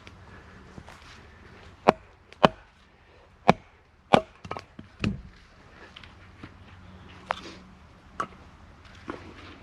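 Hatchet chopping into a knotty piece of wood: about five sharp, uneven strikes, the last with a heavier thud, then a few lighter knocks. The knot makes the wood hard to cut through.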